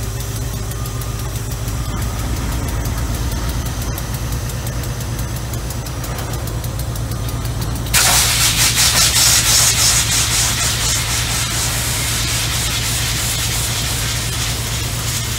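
Diesel locomotive engine idling with a steady low drone. About eight seconds in, a sudden loud rushing noise starts and fades over the next few seconds.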